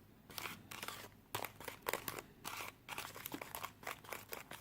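Small plastic crinkling and clicking from a Japanese DIY candy kit's packets and plastic tray being handled: a run of quick, irregular, light crackles.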